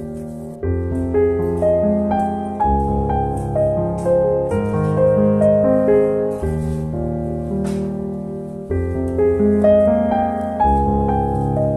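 Background piano music: a gentle melody over low chords that change every two seconds or so.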